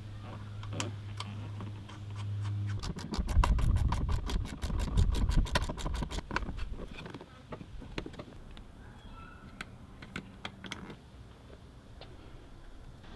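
A low steady hum, then a ratchet wrench clicking rapidly and evenly for a few seconds as a nut or bolt is turned, followed by scattered single clicks and taps of tools on metal.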